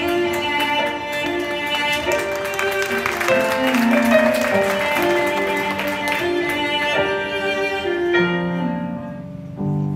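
Stage-show music with a melody of held notes over a fuller backing; near the end the accompaniment thins out and the level drops.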